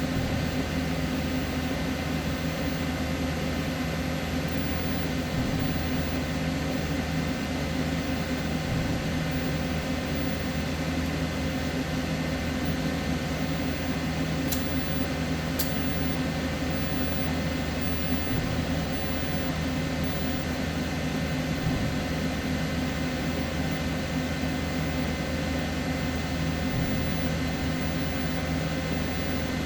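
Steady electrical hum with a fan-like hiss from a TIG welding setup running, unchanging throughout, with two brief high-pitched ticks about halfway through.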